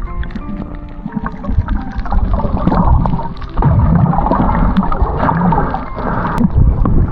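Water gurgling and sloshing in irregular, loud surges, with background music faintly under it at the start and returning near the end.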